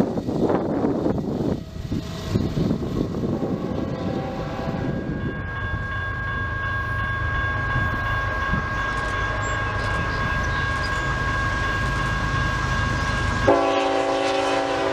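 Freight train diesel locomotives approaching with a steady low engine rumble, their air horn held on a steady tone through the middle. Near the end a louder, closer multi-note horn chord sounds. The opening seconds are mostly wind on the microphone.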